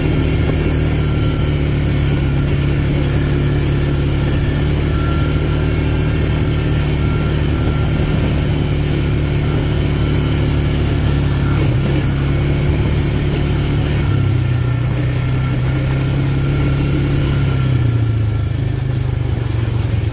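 ATV engine running steadily while riding a dirt trail, heard from the rider's seat. The engine note shifts pitch about two-thirds of the way through and eases slightly near the end.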